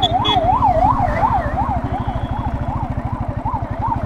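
Siren sweeping quickly up and down, about three times a second, over a motorcycle engine running steadily.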